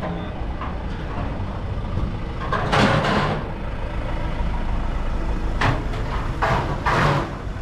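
Box truck's diesel engine idling close by, a steady low rumble, with several short bursts of hissing noise over it, the loudest about three seconds in.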